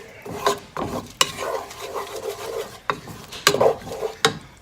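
A utensil stirring and scraping a thick butter, garlic and parmesan sauce around a pan, with several sharp knocks against the pan at irregular moments.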